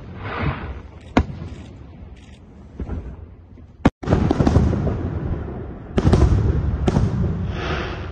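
Fireworks salute: aerial shells bursting with sharp bangs and crackling. There is a single bang about a second in, then from about four seconds on a denser run of booms, rumble and crackle.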